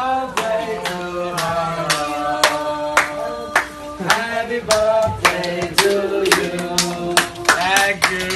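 A small group of people singing together, clapping along in time at about two claps a second.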